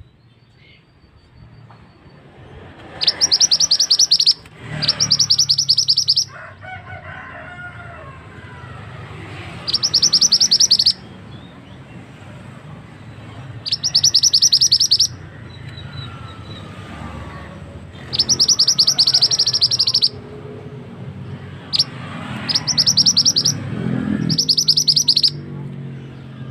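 Male mandi darah (mantenan) bird song used as a hunting lure: a rapid, high-pitched trill given in bursts of one to two seconds, about seven times, with pauses of a few seconds between.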